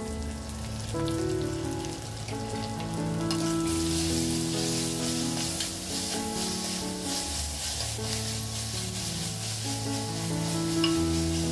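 Shallots, dried red chillies and curry leaves sizzling in hot oil in a clay pot as a spatula stirs them, the sizzle growing louder about three seconds in. Soft background music plays with it.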